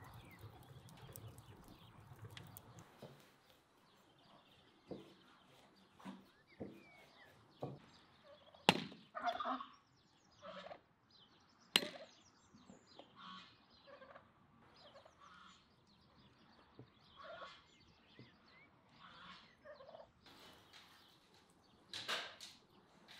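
Two sharp axe blows splitting firewood on a stump, about three seconds apart, amid short bird calls repeated every second or so, typical of farmyard fowl.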